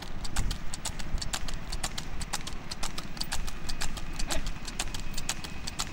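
Water buffalo's hooves clip-clopping quickly and steadily on an asphalt road as it pulls a cart, about five hoof strikes a second, over a steady low rumble from the cart rolling.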